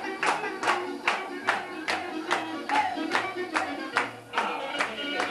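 Rhythmic hand clapping, about two to three claps a second, keeping time with dance music.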